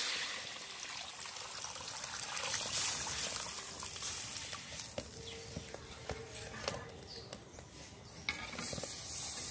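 Water poured into a hot iron wok of oil-fried moong dal: the hiss of water hitting the hot pan fades over the first second or two into pouring and bubbling. A metal spatula clicks and scrapes against the wok.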